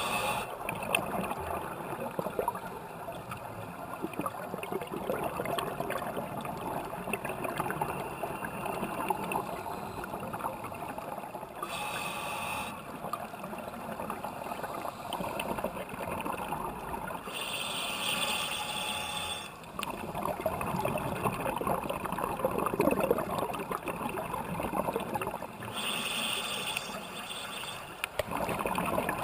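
Scuba diver breathing through a regulator underwater, heard through the camera's waterproof housing: a steady rush of exhaled bubbles, broken three times by a short, brighter inhalation hiss.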